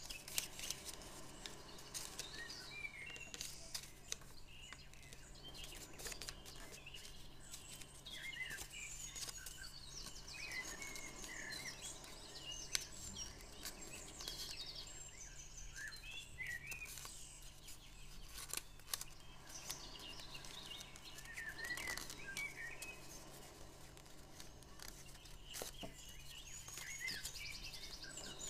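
Small birds chirping and trilling in the background, with scattered crisp clicks and crackles of paper being creased by hand, over a faint steady low hum.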